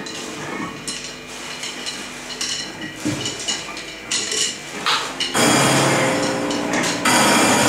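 Free improvised music: scattered metallic clinks, scrapes and ringing strokes on cymbals and metal percussion. About five seconds in, the ensemble suddenly swells into a loud, dense wash of sound.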